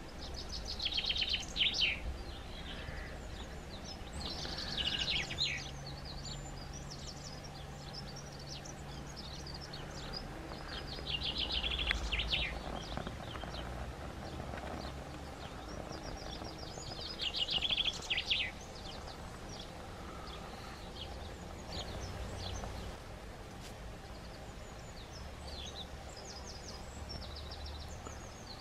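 Small songbirds singing in short bursts of quick, high notes, four times louder and then more faintly near the end, over a steady low background rumble.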